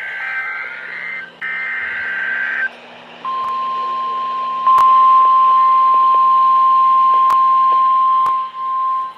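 Emergency Alert System SAME header: warbling digital data tones in bursts, ending about two and a half seconds in. After a short gap comes the NOAA Weather Radio single-tone attention signal, a steady high tone that jumps louder about a second and a half after it starts and holds, warning of an alert that is about to be read.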